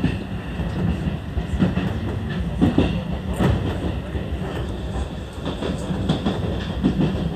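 Seibu 101-series electric train running along the track, heard from the cab: a steady rumble of wheels and motors with irregular clacks as the wheels cross rail joints.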